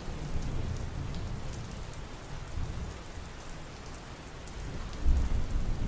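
Steady rain falling, with a low rumble that swells near the end, typical of distant thunder.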